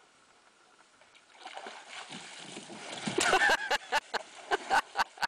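Water splashing and sloshing as a Labrador clambers into a canoe and the canoe capsizes, building from about a second and a half in to a loud splash about three seconds in. A person's voice cries out with the splash and then comes in quick repeated bursts, like laughter.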